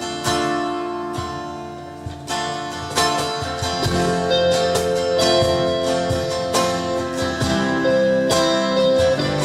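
A worship band's instrumental break with no singing: strummed guitar chords under held melody notes.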